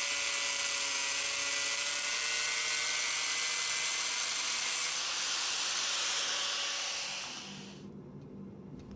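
A motor-driven tool running with a steady hissing whine, fading away about seven to eight seconds in.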